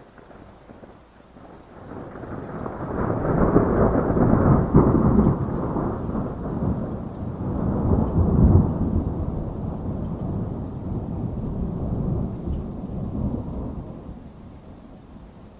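A long roll of thunder over steady rain: the rumble builds over a couple of seconds, rolls on heavily for several seconds, then fades away near the end, leaving the rain.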